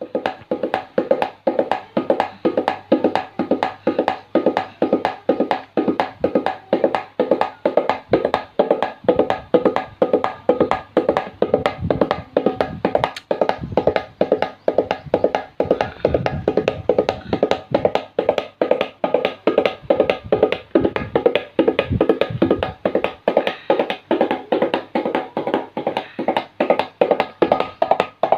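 Tabla played in a quick, even galloping rhythm that imitates a running horse's hoofbeats: a steady stream of sharp, ringing strokes on the right-hand drum, with occasional deep bass strokes from the left-hand drum.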